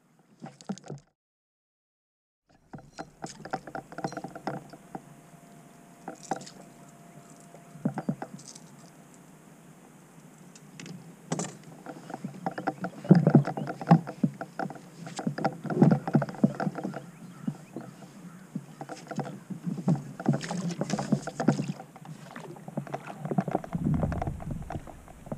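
Irregular knocks, clicks and rattles of rod, reel and gear against a plastic fishing kayak while a hooked fish is played and reeled in toward the boat, busiest in the second half.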